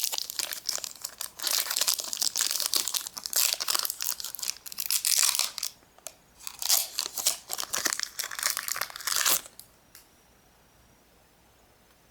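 Foil booster pack wrapper being torn open and crinkled, in irregular bursts of crackling rustle with a brief pause about halfway; it stops a couple of seconds before the end.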